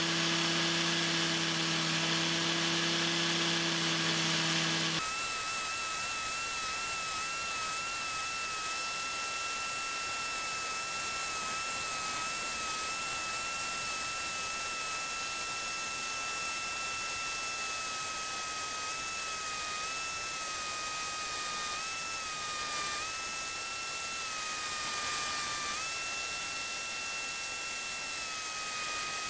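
Electric power tool motor running steadily. About five seconds in, a lower hum switches abruptly to a higher whine, whose pitch dips slightly a few times near the end.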